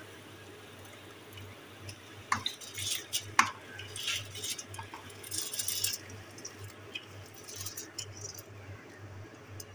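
Soaked parboiled rice being tipped from a steel bowl into a pot of boiling water. The bowl clinks against the aluminium pot a few times, and the grains pour into the water with a hissing rush, loudest from about two to six seconds in. A low hum runs underneath.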